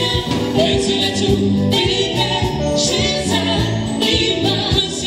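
Live band playing a song with a singer: bass guitar, electric guitar, keyboard and drum kit.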